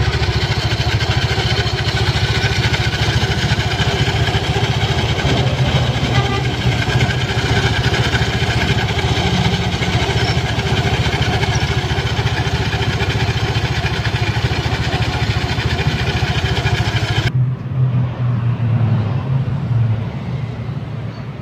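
Yamaha Mio Sporty scooter's single-cylinder engine running steadily with the CVT cover off, belt and pulleys spinning and the CVT noisy: the noise is traced to an oversized shim ring fitted at the rear pulley, which has worn other parts. About four seconds before the end the sound cuts off abruptly to a quieter low sound.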